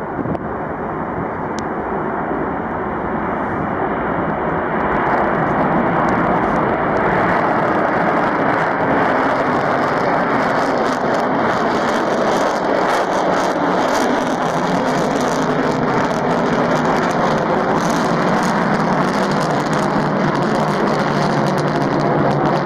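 Rockwell B-1B Lancer's four General Electric F101 afterburning turbofans at full afterburner on the takeoff run and climb-out. The jet roar builds over the first several seconds, then holds steady with a crackle.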